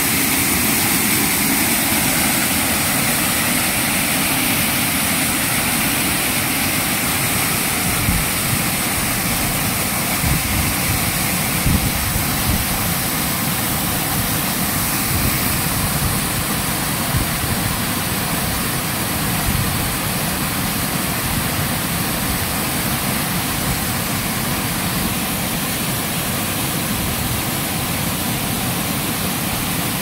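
Waterfall pouring into its plunge pool: a steady, loud rush of falling water.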